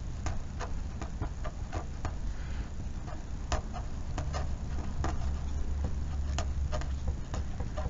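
A pen writing on a paper worksheet: irregular light ticks and scratches from the strokes, over a low steady hum.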